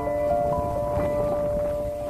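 Slow background music of long held notes, with a new note struck about a second in.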